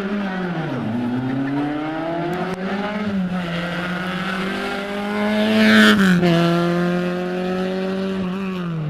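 Rally car engine revving hard up through the gears, its pitch climbing and dropping sharply at each upshift. It is loudest as the car passes about six seconds in, then recedes and fades near the end.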